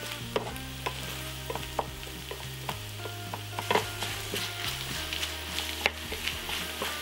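Pork, kimchi and garlic chives sizzling in a frying pan while a spatula stirs and turns them, with scattered sharp taps and scrapes of the spatula against the pan.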